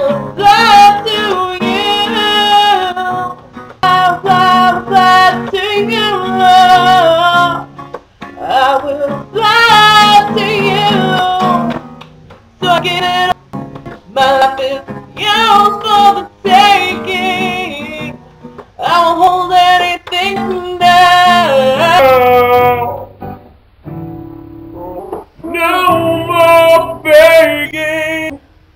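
A woman singing with acoustic guitar, the recording repeatedly cutting out and stuttering in abrupt gaps: a glitching home recording on a computer that can't keep up.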